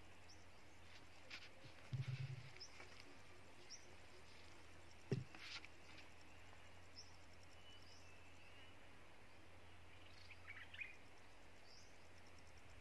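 Near-quiet background with faint, short, high bird chirps scattered through it, a low bump about two seconds in and a sharp click about five seconds in.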